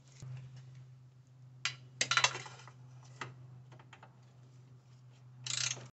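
Metal clicks and clinks of a 10 mm socket on an extension bar being worked onto a headlight mounting bolt, with a denser cluster of clicks about two seconds in and a short noisy burst near the end.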